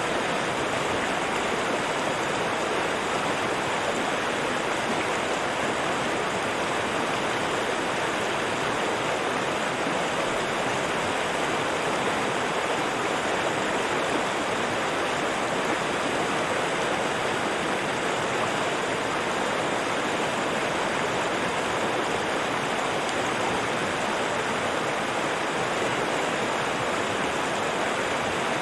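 A river rushing steadily over rocks, an even flow of water with no breaks or changes.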